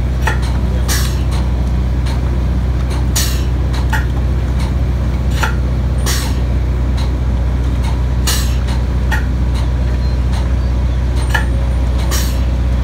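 Engine-driven equipment on a polymer injection trailer running steadily with a low hum, with short sharp hisses of air about every two seconds.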